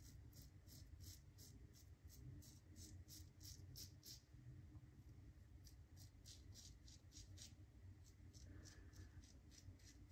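Karve Overlander safety razor scraping stubble through lather on the neck in quick short strokes, about three a second, with a brief pause about four seconds in. The scraping is faint.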